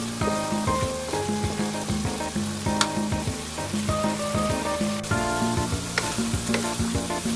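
Diced chayote sizzling as it is stir-fried in an aluminium wok, a wooden spatula stirring and scraping through it, with a few sharp knocks of the spatula against the pan. A melodic background music track plays along.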